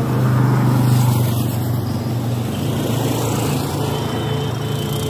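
A steady low engine drone, swelling slightly in the first second or so and then holding even.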